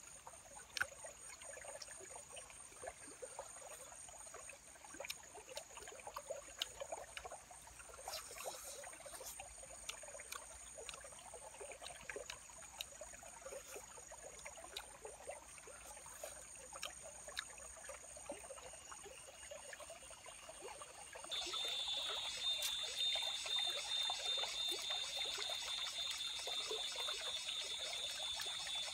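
A stream trickling steadily, with high steady insect tones above it. About two-thirds of the way in, a louder, fast-pulsing insect trill starts and carries on.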